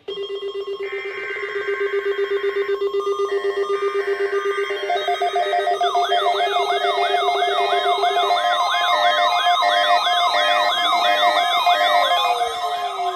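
Emergency alert tones from a NOAA Weather Radio weekly test of the SAME and tone alert systems. Two buzzy data bursts of the alert header sound over a steady low tone. About six seconds in, a fast wailing siren-like sweep joins, repeating about twice a second with a pulsing tone, and near the end a tone slides downward.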